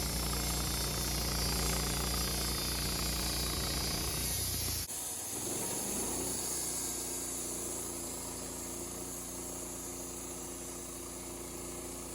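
Wood-Mizer LT15 sawmill running steadily. About five seconds in the sound cuts abruptly to a quieter, lower steady engine note.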